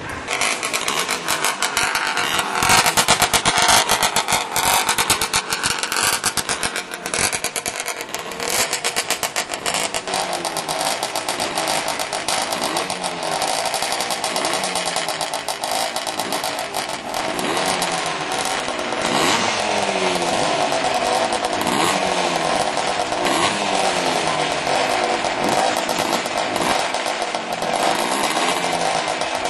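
Vintage racing motorcycle engines running hard, revved up and down again and again, a harsh buzzy note whose pitch keeps rising and falling.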